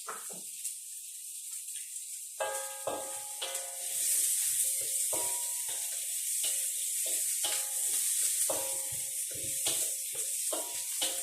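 Sliced shallots, ginger and lemongrass sizzling in a little hot oil as they fry golden. From about two seconds in, a spatula scrapes and clinks against the pan in repeated stirring strokes, roughly two a second, with a ringing tone on each stroke.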